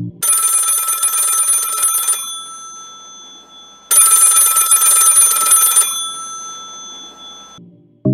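A bright, bell-like ringing sound effect, two rings about two seconds each with a short gap; the first stops sharply, the second fades away slowly.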